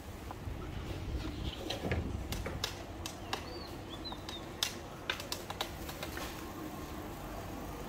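Street ambience of a market lane: scattered sharp clicks and clatter over a low rumble, with two short high bird chirps around the middle.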